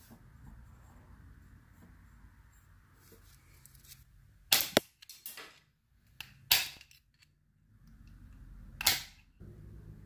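Metal snips cutting a small piece of thin copper sheet: three sharp clacks from the closing blades, about two seconds apart, with lighter clicks between them.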